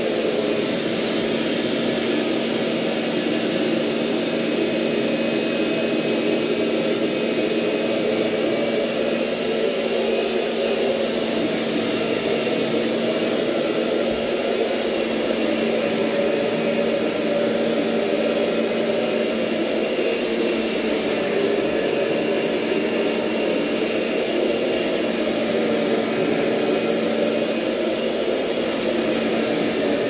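Kirby upright vacuum with its carpet shampoo head attached, motor running steadily as it is pushed over the carpet to pull up more dirty sludge: a constant motor hum with a rushing airflow.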